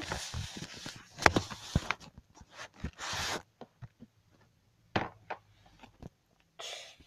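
Handling noise close to a phone's microphone: rustling and scraping with several sharp clicks and knocks as the phone is moved and set down or dropped, then a few scattered knocks and one more short rustle near the end.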